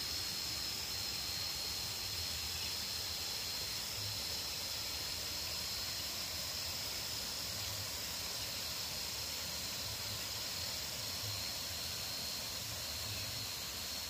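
Night insects trilling in a steady, continuous high-pitched drone, over a soft even hiss of outdoor ambience.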